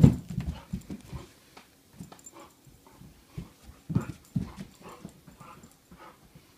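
Great Pyrenees puppy scampering and pouncing about on a carpeted floor, a quick run of thuds and paw steps. The thuds are loudest right at the start and again about four seconds in.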